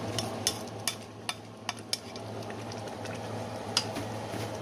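Plastic spatula stirring a thick pot of vegetable soup over the heat, with scattered short clicks and scrapes against the pot, most in the first two seconds and one more near the end, over a soft simmer and a steady low hum.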